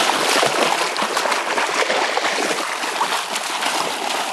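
Puppies running and wading through shallow lake water, a continuous rush of splashing and sloshing with many small, quick splashes.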